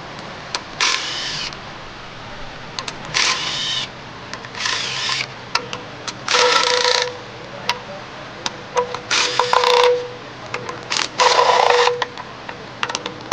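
A cordless power tool spinning out the oil pan's 10 mm bolts in six short bursts, each under a second, with small clicks between the bursts.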